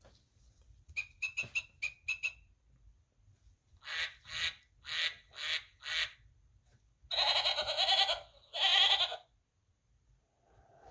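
Recorded farm-animal sound effects played from a children's button sound book. A cluster of short, high bird chirps comes first, then five short frog croaks in a row, then two longer bleats.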